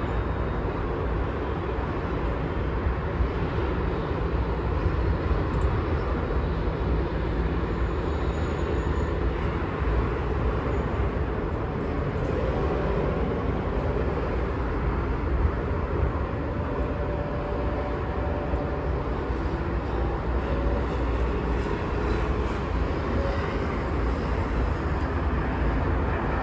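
Steady low rumble of distant city road traffic mixed with wind, with a faint engine-like hum now and then and no sharp events.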